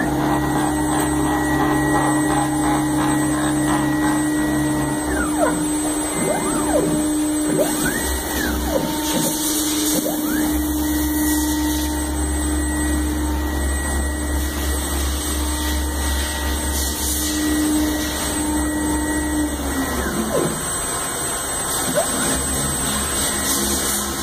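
AXYZ 6010 CNC router's axis drive motors whining up and down in pitch, again and again, as the gantry and spindle head traverse to the limits of each axis. Underneath runs a steady machine hum that drops away about 20 seconds in.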